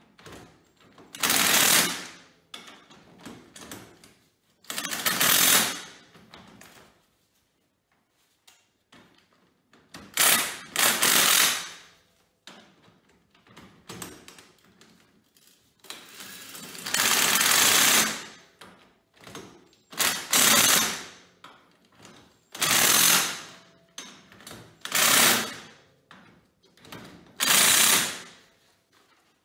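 Impact wrench hammering the nuts of a 2-inch ATV wheel spacer onto the hub of a Yamaha Kodiak 700, in about ten short bursts with pauses between as it moves from nut to nut, one burst near the middle running about two seconds. The nuts are being tightened in a cross pattern because the spacers are not hub-centric.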